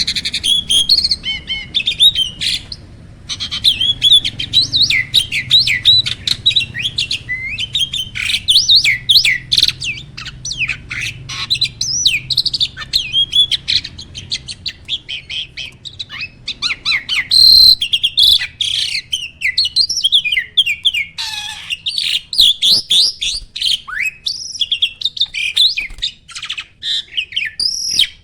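A myna (jalak) singing a fast, almost unbroken stream of varied chirps, whistles and rattles, with a brief pause about three seconds in.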